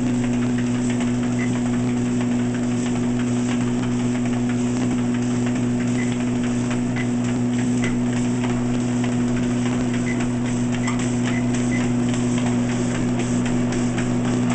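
Motorized treadmill running with a steady electric hum, with light, irregular ticks from a small dog's steps on the moving belt.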